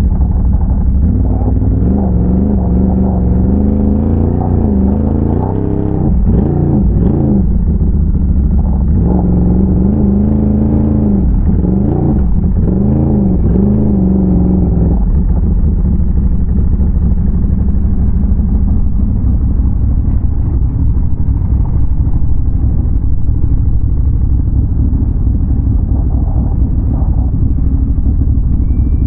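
Can-Am Renegade ATV's big-bore V-twin engine, its revs rising and falling again and again through the first half, then running more steadily under way.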